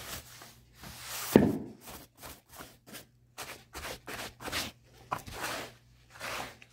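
A stiff long-handled brush scrubbing carpet at the foot of a wall in quick short swishes, about three a second, to loosen dust from the edge. There is one louder knock about a second and a half in.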